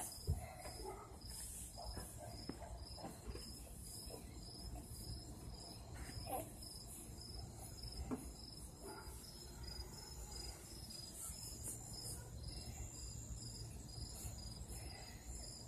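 Crickets chirping faintly in a steady, evenly repeating high pulse, with a few soft knocks and rustles now and then.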